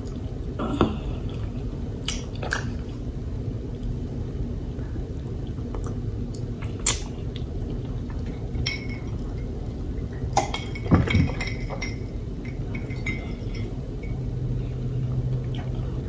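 A handful of light clicks and clinks of tableware and a paper napkin being handled, scattered over a steady low background hum, the strongest about a second in, near the middle and about two-thirds of the way through.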